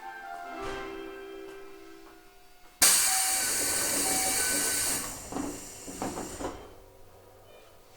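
A short melody of held tones plays, then about three seconds in a Toei 5300 series train car's compressed-air equipment lets out a sudden loud hiss for about two seconds. It fades out with a few knocks.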